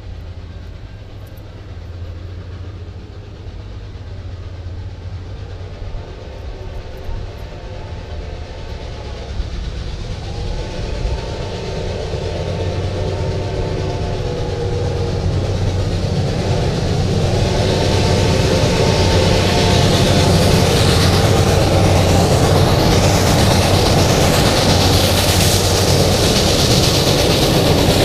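Reading & Northern steam locomotive 425 approaching along the track, sounding its whistle in three long blasts. Its running noise grows steadily louder and brighter through the second half as it closes in.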